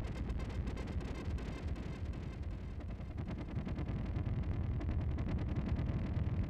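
Experimental electronic noise from hacked hardware: a dense, steady deep rumble with a fast crackle running over it, swelling slightly toward the end.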